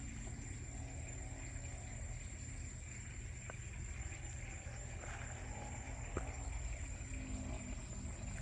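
Quiet night-time outdoor ambience: a steady low rumble with a thin, steady high-pitched insect drone, and two faint clicks partway through.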